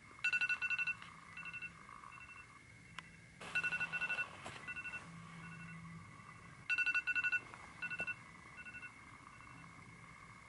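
iPhone alarm going off: a quick run of high beeps that fades away in softer echoing repeats, the pattern starting over about every three seconds, three times in all.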